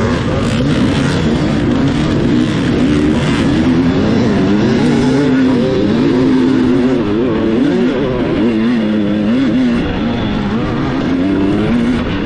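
Off-road dirt bike engine being ridden hard, revving up and down as the throttle opens and closes, its pitch rising and falling every second or so.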